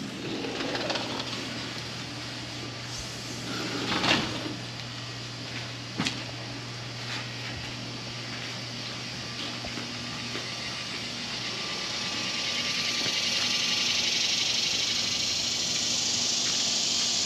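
A steady low mechanical hum, with a sharp knock about four seconds in and another about six seconds in. A hiss swells from about twelve seconds in and then holds.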